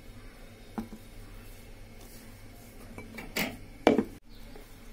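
Kitchenware knocking against a bowl as a blended banana mixture is poured onto flour for pancake batter: one light knock about a second in, then two louder knocks near the end.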